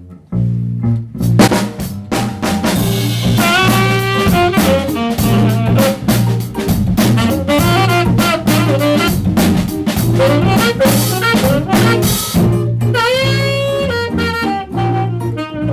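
Small jazz ensemble playing: drum kit, bass and a horn line whose notes often scoop up into pitch.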